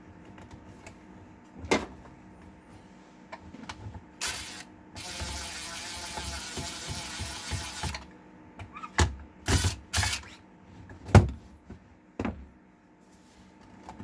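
Clicks and knocks of a screwdriver and metal parts while stuck lid screws are worked on a small resin 3D printer, with a few sharp knocks clustered in the second half and a steady hiss lasting about three seconds in the middle.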